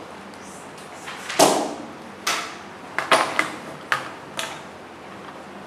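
A handful of light knocks and clicks, about seven in all, the loudest about a second and a half in, as things are handled on a classroom desk: a pencil case and a phone against the tabletop.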